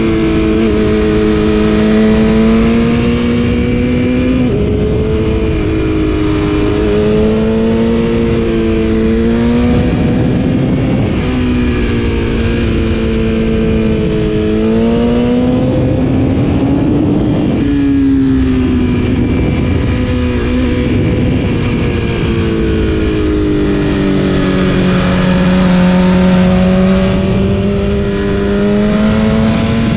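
2020 BMW S1000RR's inline-four engine through an Akrapovic exhaust, pulling hard on a mountain road: its pitch climbs and drops with several gear changes, over steady wind and road noise.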